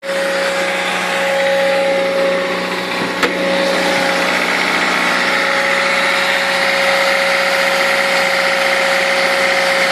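A car's engine bay giving a steady whirring sound with a held mid-pitched tone, with a single brief click about three seconds in. The noise comes on in cold weather once the car has been running a while, and brand-new drive belts have not cured it; its cause is unknown.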